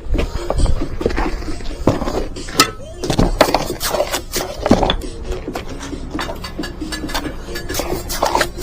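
Mason's trowel clinking and scraping against bricks and mortar in irregular sharp taps.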